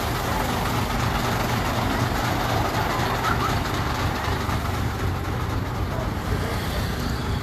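Heavy diesel vehicle engine running steadily with a low drone.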